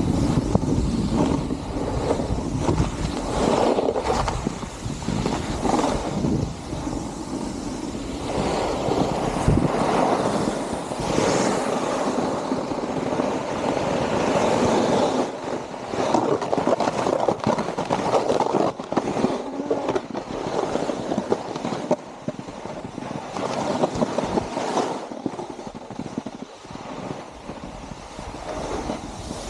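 A snowboard's edge scraping over firm snow in long swells as the rider carves turns, with wind buffeting the action-camera microphone, heaviest in the first half.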